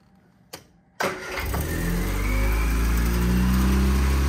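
Two faint clicks, then about a second in a Triumph Spitfire 1500's four-cylinder engine catches abruptly. Its revs climb and then settle into a steady idle that is super high, a fault the owner can't cure by turning down the idle.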